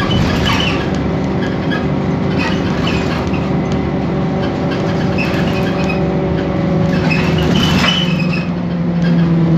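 Inside a BMC Belde city bus under way: its Cummins ISBe 6.7 diesel and ZF Ecomat 6HP504C automatic gearbox drone steadily, the Ecomat's whine faint, while loose interior parts rattle and click throughout. The drone's pitch shifts a little past the middle.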